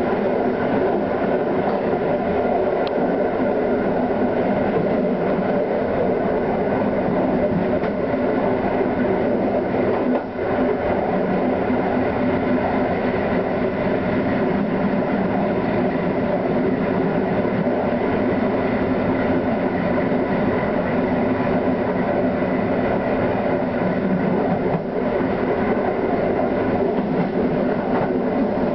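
A train running along the track, heard from aboard: a steady rolling rumble with a hum. It dips briefly once, about ten seconds in.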